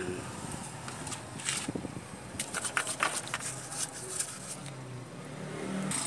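Hand-tool work on a Toyota 2C diesel engine's timing-belt end: sharp metallic clicks and taps of a wrench against the engine. They come singly at first, then in a quick cluster about two and a half to three and a half seconds in.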